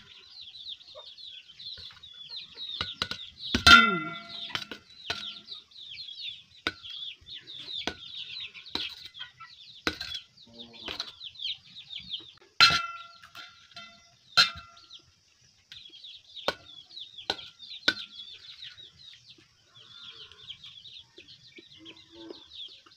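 Steel ladle and spoon clinking and scraping against a stainless steel plate, with sharp ringing clinks about 4 s in and again around 13 and 14 s. A constant high-pitched chirping runs underneath.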